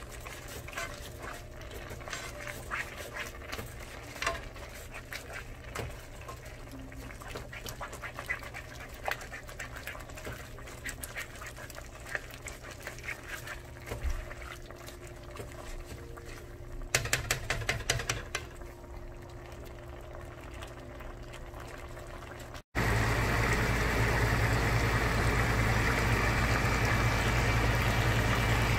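Collard greens in their cooking liquid being stirred and turned in a simmering pan with a plastic utensil: wet squelching and bubbling with small clicks against the pan, and a louder flurry of clatter around 17 seconds. About 23 seconds in, the sound cuts suddenly to a loud steady hum with a faint high whine.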